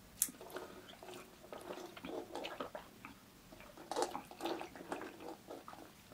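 Close-miked chewing and mouth sounds of a person eating chicken biryani, a run of irregular short clicks and smacks. About four seconds in come sips through a plastic straw from a cup of drink.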